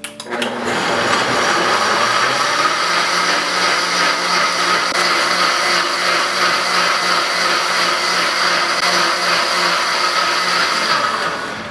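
Countertop blender motor running at high speed, puréeing cooked tomato soup. It spins up in the first second, runs steady and loud, and winds down near the end.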